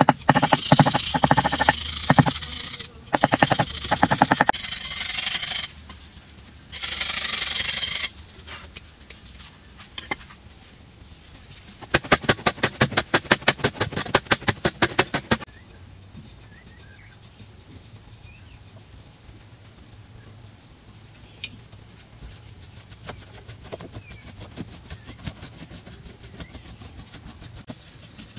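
Metal hand tools scraping and chipping at soft sandstone in rapid, even strokes, in loud bursts through the first half. It then goes quieter, with only faint scrapes and a thin steady high tone.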